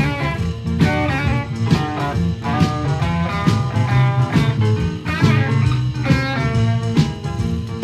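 Instrumental passage of a 1970 British blues-rock band: guitar over bass and drums, with no vocals.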